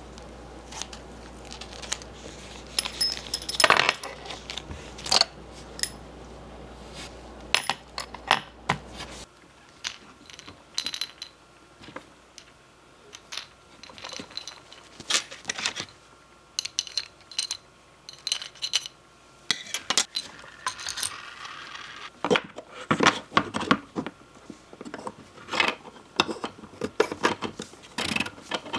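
Small hard parts being handled: many sharp clicks and taps, some with a short metallic ring. A low hum underneath stops about nine seconds in.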